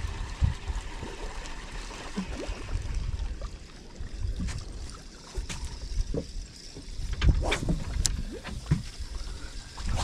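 Small boat on the open sea: wind rumbling on the microphone and water lapping against the hull, with a handful of sharp knocks and clicks in the second half.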